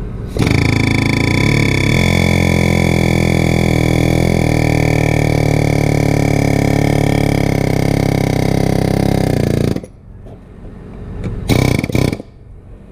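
A loud motor running steadily for about nine seconds, a low hum with a high whine over it, then cutting off suddenly; two short sharp noises follow near the end.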